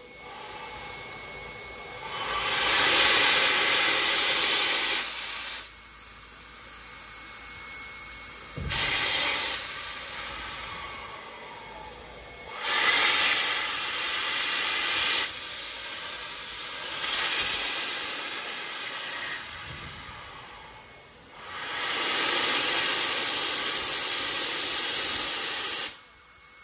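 Steam hissing from the front end of 59 class steam locomotive 5917, in about five strong surges lasting one to four seconds each, with a quieter steady hiss between them.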